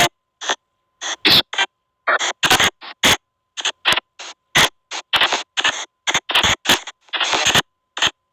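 Ghost-box app output: short, irregular bursts of white-noise static, several a second, chopped apart by abrupt silences, with a faint steady tone underneath.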